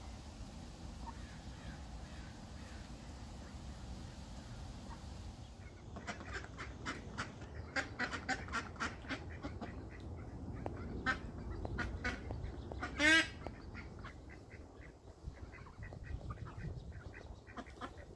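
Young ducks calling: after a quiet stretch, a quick run of short peeping calls starts about a third of the way in, with one loud, longer quack a little past the middle.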